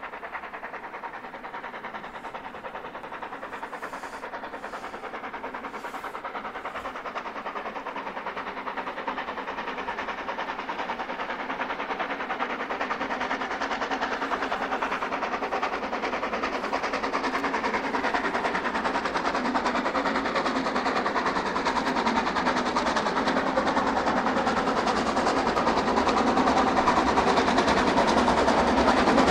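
A train running with a fast, even clatter, growing steadily louder as it draws closer.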